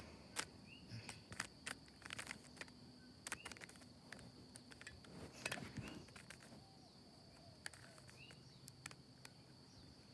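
Plastic Rubik's cube being turned in quick final moves: a scatter of light clicks and snaps, irregular and in small clusters. Under it runs a faint steady high tone, with a short faint chirp every couple of seconds.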